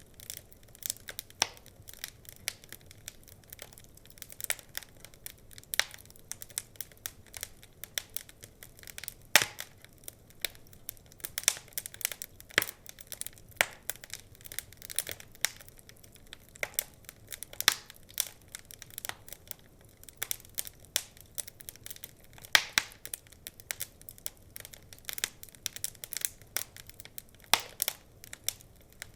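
Wood fire crackling: irregular sharp pops and snaps at uneven intervals, some much louder than others, over a faint low hiss.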